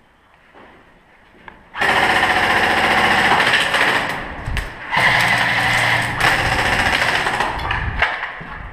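Airsoft rifle firing on full auto: two long, rapid bursts with a short break between, starting about two seconds in.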